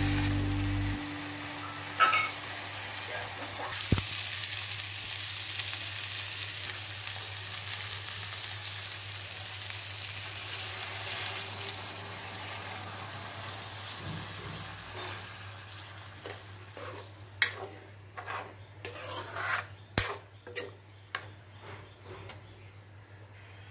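Futka mushrooms sizzling as they fry in masala in a kadhai. The sizzle dies down after water is poured in about halfway through, and then a spatula scrapes and knocks against the pan as the gravy is stirred.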